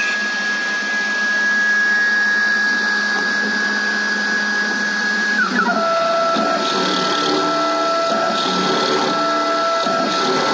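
CNC milling machine spindle running with a steady high whine. About five and a half seconds in, the whine steps down in pitch and a rougher sound joins it as a small end mill cuts window slots into a brass workpiece, throwing chips.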